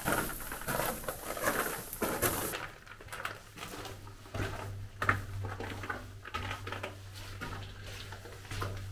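Footsteps scuffing over the wet rock floor of a narrow mine tunnel, an uneven run of soft knocks with some echo.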